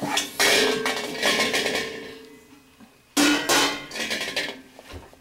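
Dishes and cutlery being handled at a dishwasher: two clatters, about half a second in and about three seconds in, each leaving a brief ringing tone as the struck dish rings out.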